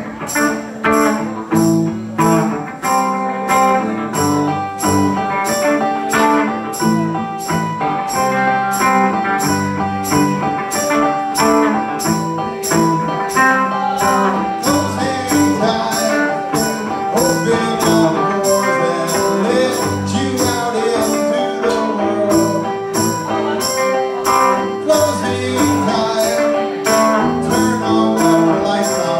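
Live rock band playing through a PA: electric guitars, bass, drum kit and keyboard, with a steady cymbal beat driving the song.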